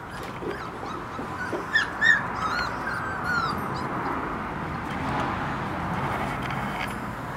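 Nearly four-week-old puppies whimpering in short, high, squeaky cries that bunch together and are loudest about two seconds in.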